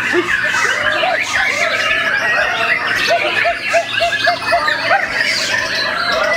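Bornean white-rumped shama (murai batu) singing a fast, varied song packed with mimicked notes, over other songbirds singing at once. Midway there is a run of short repeated arched notes, about three a second.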